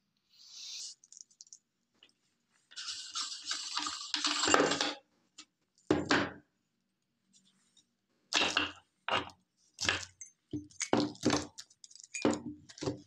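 Hard lollipop candy clinking and crunching in irregular bursts, with one longer grinding, crackling stretch about three seconds in and a run of short sharp clatters in the second half.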